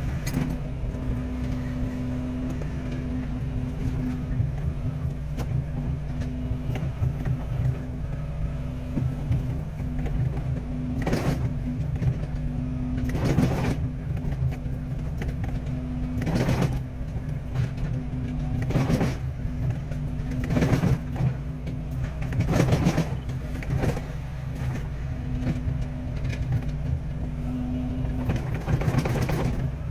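Excavator's diesel engine running steadily under work, with several short, louder noises a couple of seconds apart from about a third of the way in as the machine works.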